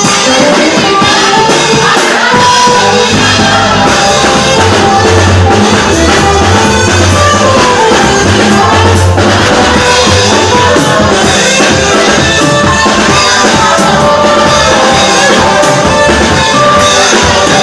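Loud live praise-and-worship music: a band with drums playing while voices sing.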